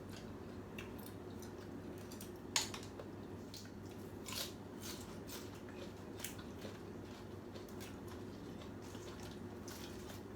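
Someone eating noodle soup: quiet chewing and wet mouth smacks at irregular moments, the sharpest about two and a half seconds in, over a faint steady hum.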